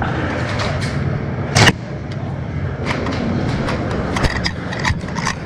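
Airsoft BBs hitting the player wearing the camera: one loud sharp hit about one and a half seconds in, then a run of lighter sharp clicks near the end, over a steady rustle of movement. The hits come while his hand is raised to signal he is already out.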